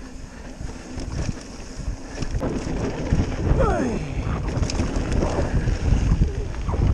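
Wind buffeting the camera microphone and mountain-bike tyres rumbling and rattling over a dirt trail on a fast descent. The noise grows louder about two seconds in as the bike speeds up.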